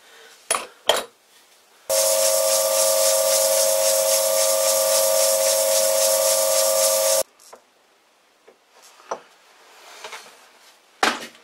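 Vintage Karger metal lathe running for about five seconds with a steady whine and a hiss from a file held against the spinning backing-plate register, taking it down to fit the chuck. It starts sharply about two seconds in and cuts off sharply, with a few light metal clicks of handling before and after.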